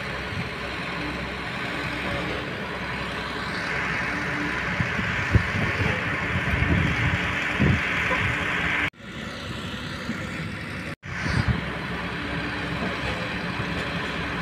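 Kobelco hydraulic excavator working, its diesel engine running steadily under load as the boom lowers, with a hiss that builds through the middle and a few low knocks. The sound cuts out briefly twice past the halfway point.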